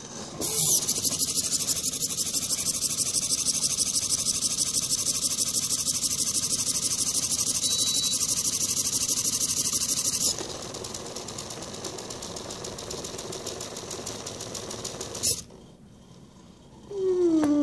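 Small hobby DC motors spinning the mesh-strip brushes of an Arduino-controlled model car wash, a fast buzzy whir. It starts about half a second in, drops to a quieter run about ten seconds in, and cuts off with a click about fifteen seconds in.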